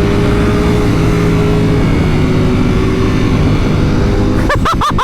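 Motorcycle engine running steadily at road speed, heard from the rider's bike, with a thick low rushing noise under it. Near the end come a few short rising-and-falling chirps.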